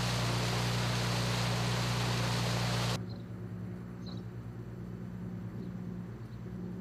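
An engine running steadily with a low hum. For the first three seconds a loud rushing noise lies over it, then cuts off abruptly, leaving the engine hum with a few faint high chirps.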